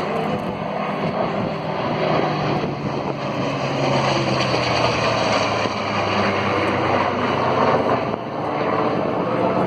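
Heritage Flight formation of an A-1 Skyraider, a P-40 and an A-10C Thunderbolt II flying by: piston engines and jet engines together making a loud, steady drone.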